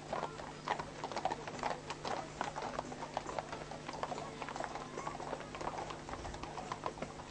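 Hooves of several ridden horses clip-clopping on a paved road as they walk past, in an irregular, overlapping patter of clicks.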